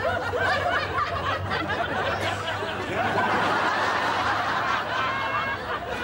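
Studio audience laughing, many people together, the laughter thickest in the middle of the stretch.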